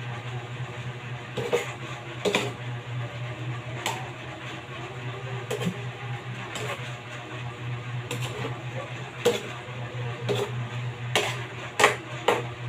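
Metal spatula knocking and scraping against a metal wok while stirring greens, in irregular clinks about once a second, over a steady low hum.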